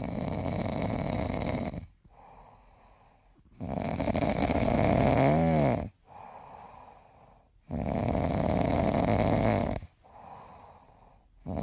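Sleeping puppy snoring: three long snores of about two seconds each, roughly every four seconds, with faint breathing between them. The middle snore carries a wavering whistle.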